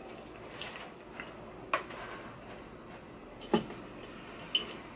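A few light clicks and taps, about four in all and spaced out, the loudest a little past the middle, as makeup items are picked up and set down on a vanity.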